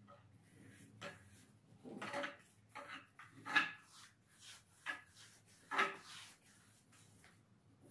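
Hands working over a bare wooden stair handrail: irregular short knocks and rubbing scrapes against the wood, the loudest about three and a half and six seconds in.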